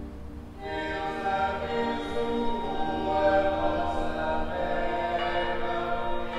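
Choral music: voices holding sustained, layered chords, swelling in fuller and louder about half a second in.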